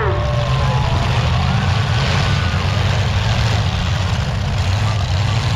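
Several demolition derby car engines running together, a loud, steady low rumble with no clear crash in between.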